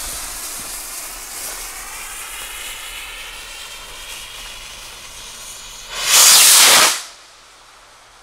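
Firework rocket's motor hissing as it climbs away, fading slowly. Near the end a much louder rush of hiss lasts about a second and cuts off sharply.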